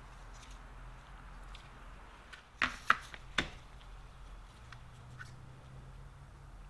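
Gloved hands handling a steel plate and cotton ball in a plastic tray while applying cold blue. Three sharp clicks come within about a second, near the middle, with a few faint ticks around them over a low steady hum.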